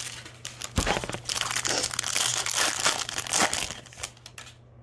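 Plastic wrapping crinkling and tearing as a sealed trading card pack is opened by hand, with a soft knock about a second in.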